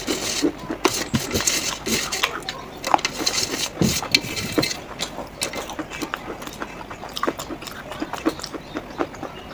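Clay crunching and clacking: a dense, irregular run of small clicks and knocks.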